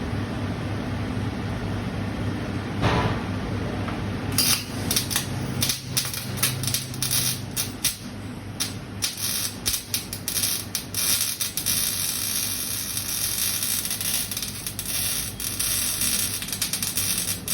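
Flux-cored arc welding: the arc crackles and sizzles, starting about four seconds in, with a few brief breaks, and cuts off suddenly near the end. A low steady hum runs beneath it at the start.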